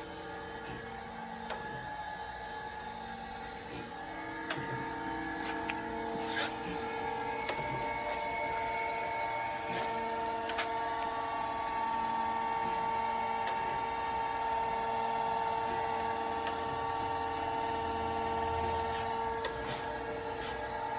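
Proth automatic surface grinder running: a steady motor whine made of several even tones, with a few scattered light clicks.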